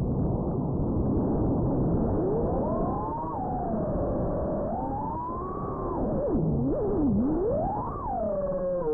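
FPV quadcopter's brushless motors whining, the pitch swooping up and down with the throttle and dipping low twice in the second half before climbing again, over a rushing noise.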